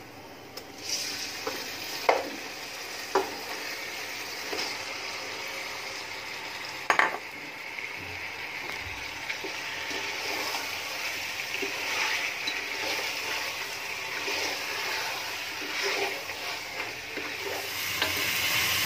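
Marinated beef pieces sizzling in hot oil with fried onions in a cooking pot while being stirred, with a few sharp knocks of utensils against the pot in the first several seconds. The sizzling starts about a second in and grows louder toward the end.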